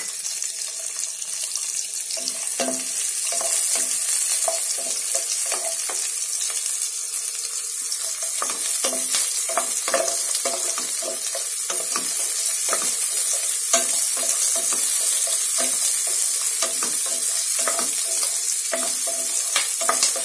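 Chopped onions sizzling in hot oil in a nonstick pan: a steady hiss that grows a little louder, with frequent short clicks and pops.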